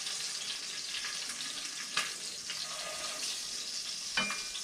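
Beef short ribs searing in hot oil in a heavy pot, a steady sizzle. Metal tongs click against the pot twice, about two seconds in and again near the end, the second with a short ring.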